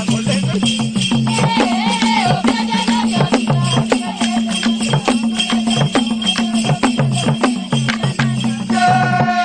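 Traditional Acholi dance music: drums beat a fast, steady pattern with shaken rattles, and voices sing over it. A high trilling call comes in near the end.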